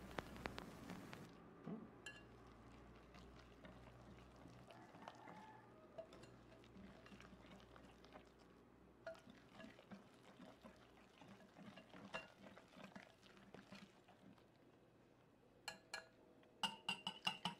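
Faint, irregular clinks and scraping of a wire balloon whisk against a glass mixing bowl as pancake batter is whisked by hand.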